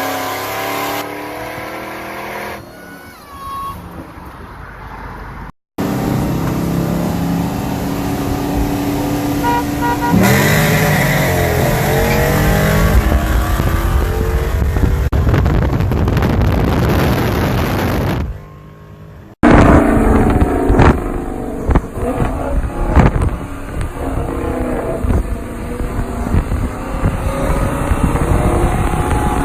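V8 pickup trucks and cars at full throttle in roll races. The engine pitch climbs and drops through gear changes, across several separate runs cut together.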